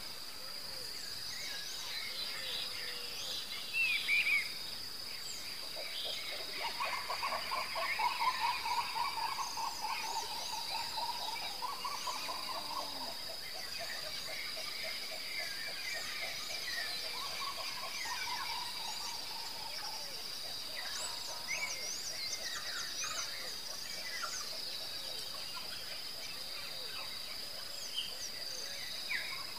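Dusk chorus of insects: a steady high-pitched trilling, mixed with many short bird chirps. A rapid pulsed trill in a lower voice joins about seven seconds in and stops around thirteen seconds.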